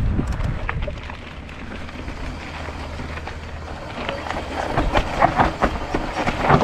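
Mountain bike rolling down a dirt singletrack: tyres crunching over stones and the bike rattling, with wind rumbling on the microphone. The clicks and rattles get thicker about four seconds in.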